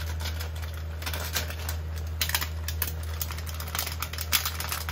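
Spaghetti and bacon in an oiled frying pan on a gas burner crackling and popping irregularly as they sizzle, over a steady low hum.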